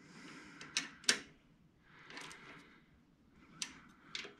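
Hand tools being handled: four sharp clicks and knocks, the loudest about a second in, with soft rustling between them.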